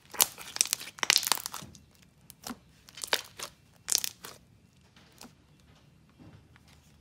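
Hands squishing and poking a thick basic slime topped with foam beads: a run of crackling, crunchy clicks and tearing sounds through the first four seconds, then only a few faint clicks.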